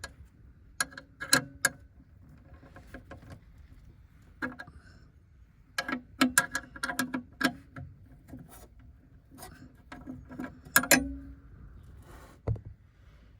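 Metal tools and boot lid hinge parts clinking and knocking in irregular clusters of sharp hits, some ringing briefly, as the hinges are fitted to the car. A dull thump comes near the end.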